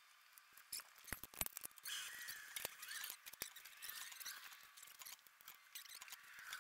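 Faint clicks of metal parts, then squeaking and scraping as the top plate and new poly insulator are worked onto the coil spring and shock in a strut spring compressor.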